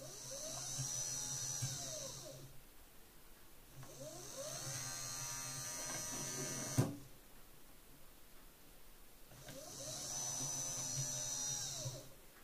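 Renault Clio power-window regulator's 12 V DC motor and gearbox, driven by an Arduino PWM H-bridge, running three times for two to three seconds each. Its whine rises in pitch as it speeds up and falls as it slows. The second run ends abruptly with a sharp knock.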